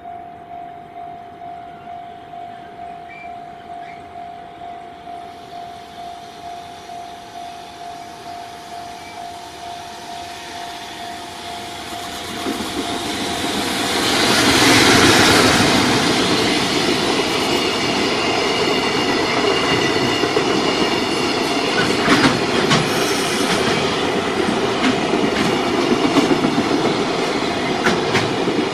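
Level-crossing warning bell ringing in an even beat of about two strikes a second as a JR Freight train hauled by an EF210 electric locomotive approaches. The locomotive passes loudly about 14 seconds in, followed by the steady roll of the freight wagons, with sharp clicks of wheels over rail joints.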